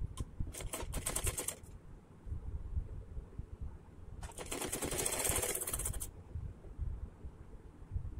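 Domestic sewing machine stitching in two runs of rapid, even needle clatter: a short run about half a second in and a longer, louder one of about two seconds near the middle, as folded piping is sewn onto a hem. Low fabric-handling noises come in between the runs.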